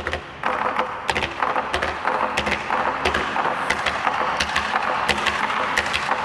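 Rapid wooden clacking, many sharp strikes a second, without the deep drum booms: wooden sticks striking wood during a taiko performance.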